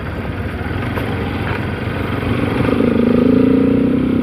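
Modified Bajaj Pulsar RS200 motorcycle's single-cylinder engine running while being ridden, growing louder and rising slightly in pitch over the second half.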